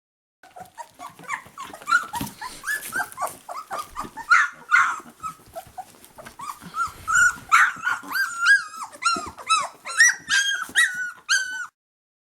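Puppies yelping and whining in a rapid string of short, high-pitched cries, the cries coming closer together and more regularly in the second half.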